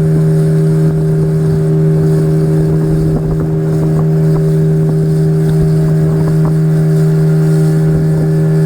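Speedboat engine running at a steady pitch while underway, with a rough rushing noise underneath.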